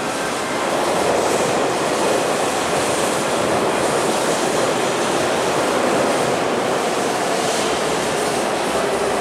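Hanshin 5001-type 'blue-body' electric local train running past along a station platform: a steady rumble of wheels on the rails, with a faint steady hum from the train in the later part.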